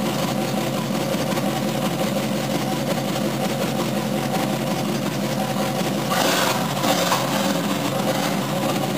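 1950 Buick Fireball 320 cubic-inch straight-eight engine running on an engine stand, idling steadily, then picking up about six seconds in.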